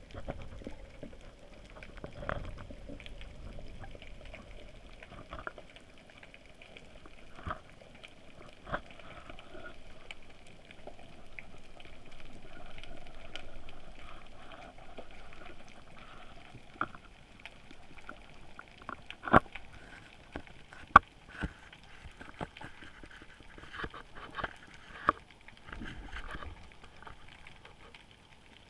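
Underwater sound picked up by a camera in its housing: a faint steady hiss with many scattered sharp clicks and knocks, a few of them louder in the second half.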